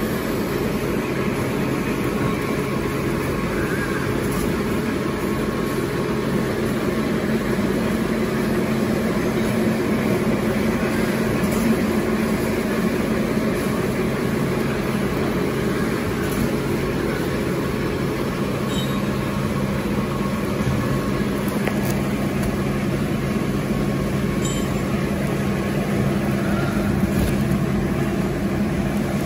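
Automatic napkin tissue production line running: a steady machine hum with held low drone tones and a few faint clicks.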